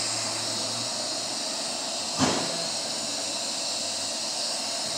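Steady hissing room noise of a vehicle repair shop with a faint low hum, broken once a little over two seconds in by a single sharp knock.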